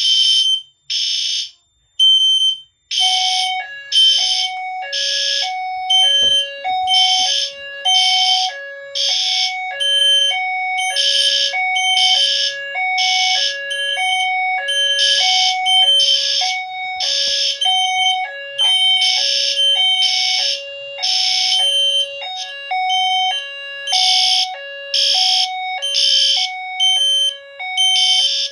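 Fire alarm horn strobes in alarm, sounding repeated pulses of a high 3000 Hz horn tone after a heat detector has been tripped. About three seconds in, a second alarm joins with a two-note tone that switches steadily between a higher and a lower pitch.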